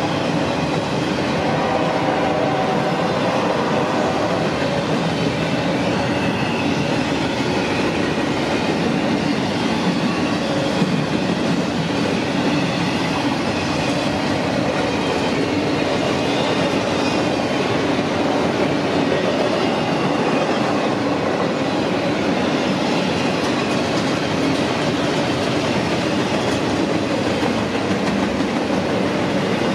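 Freight train cars rolling past: a steady rumble of steel wheels on rail with a clickety-clack over the rail joints.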